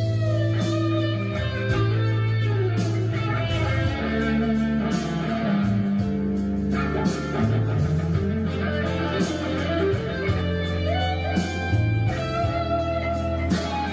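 Guitar-led rock/blues music with electric guitar and bass.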